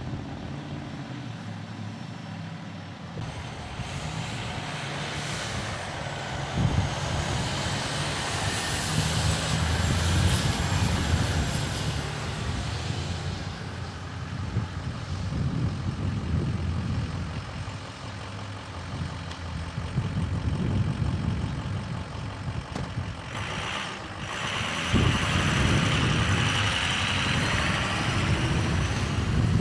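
Fire trucks pulling out to an emergency call: truck engines running and pulling away, with a siren wailing up and down for several seconds about a third of the way in and again near the end.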